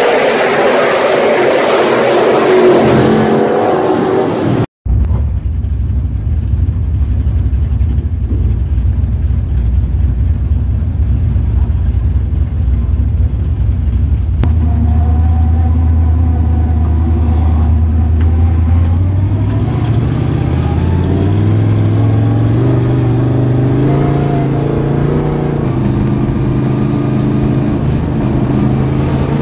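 Sportsman dirt late model's V8 engine heard from inside the car, running steadily at low revs, then climbing in pitch in steps from about two-thirds of the way through as the car accelerates. It opens with a few seconds of a louder, denser mix that cuts off abruptly about five seconds in.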